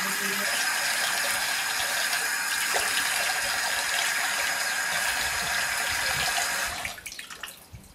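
Water running steadily from a kitchen tap into a stainless steel sink while a man washes his face under it. The flow stops suddenly about seven seconds in.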